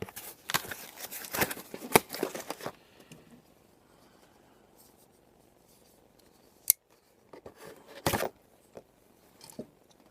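Packaging being handled during an unboxing: a run of rustling, scraping strokes for the first few seconds, then a lull, a single sharp click about seven seconds in, and a short rustle a second later.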